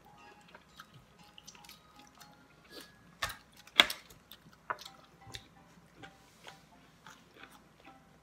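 Cutlery clinking and tapping on a plate while eating, a scatter of light clicks with two sharp clinks a little past three seconds in, the second the loudest.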